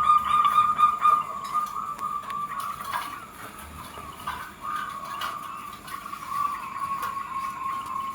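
Zebra doves (perkutut) cooing: a continuous run of coos at one pitch, drifting slightly lower toward the end.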